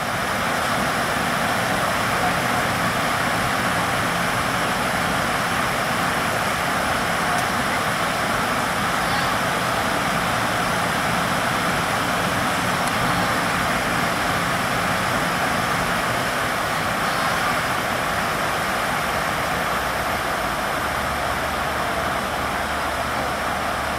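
Steady cabin noise of a Fokker 100 jet airliner on final approach: rushing airflow and the rear-mounted Rolls-Royce Tay turbofans. A deeper low rumble joins near the end as the aircraft nears the runway.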